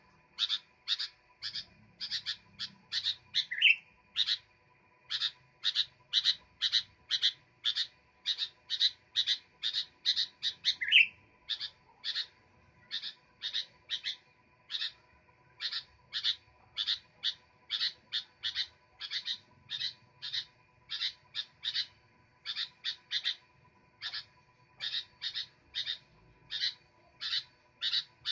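Sooty-headed bulbul calling on and on: a long run of short, sharp high notes at about two a second, with brief pauses and a couple of quick rising notes about three and eleven seconds in.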